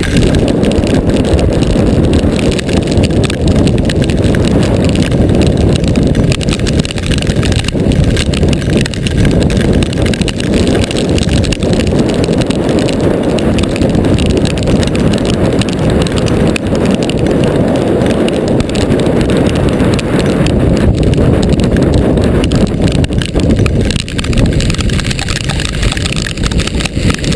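Storm-force wind buffeting the microphone in a steady loud roar, with hailstones hitting the car's roof throughout in a dense spatter of impacts.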